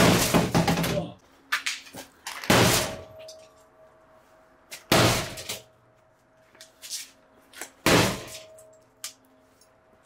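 Pickaxe striking the top panel of a Bosch washing machine four times, about every two and a half seconds, each blow a heavy thunk followed by a brief ring from the cabinet. These blows do not yet break through the top.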